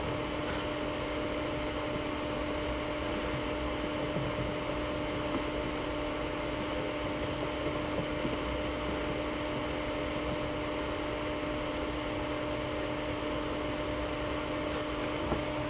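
Steady radio hiss from a VHF FM mobile radio receiver, with a constant low hum tone and a few faint clicks.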